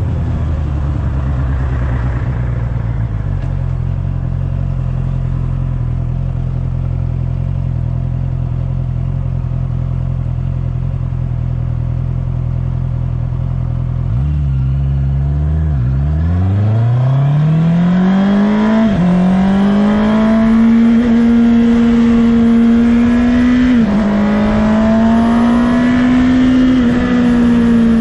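2019 Honda CB650R's inline-four engine idling steadily, then blipped once and pulling away, its pitch climbing through the gears with three quick upshifts in the second half.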